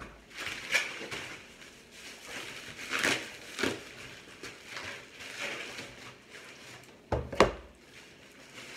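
Plastic packaging wrap crinkling and rustling in bursts as a package is unwrapped. Two sharp knocks about seven seconds in are the loudest sounds.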